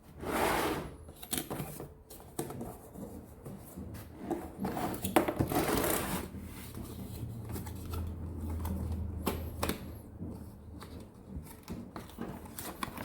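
Handling sounds of a hard plastic torque-wrench case: rustling and scraping with scattered sharp clicks.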